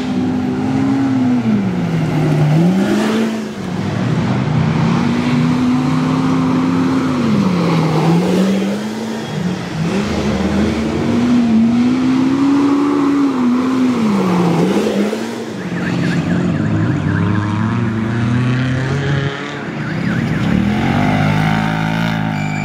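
Off-road side-by-side UTV's engine racing along a dirt track, its revs rising and falling every few seconds as the throttle comes on and off.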